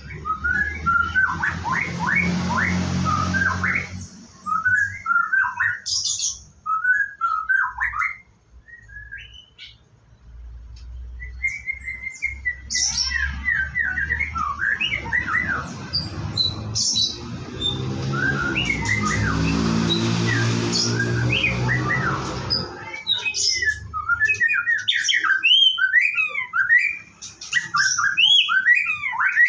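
White-rumped shama singing: a run of short, varied whistled phrases that keeps going throughout. A rushing hiss with a low hum underneath sounds for the first few seconds and again from about 13 to 23 seconds in.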